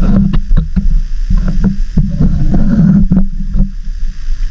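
A person wading through shallow seawater: irregular sloshing and splashing close by, with many small sharp knocks and splashes mixed in.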